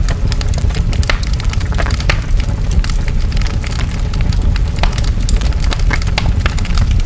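Large forest fire burning: a steady deep roar with frequent sharp crackles and pops of burning wood.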